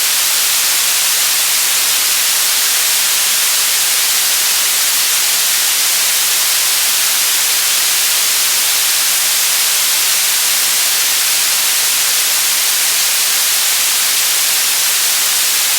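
Static noise: a loud, steady hiss, strongest in the high treble with little low end, even and unchanging in level.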